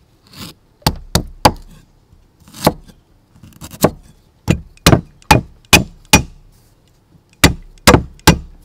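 Large kitchen knife chopping fresh root on a thick round wooden chopping block: sharp wooden knocks, a few spaced strokes at first, then a quick run of about five strokes in the middle and three more near the end.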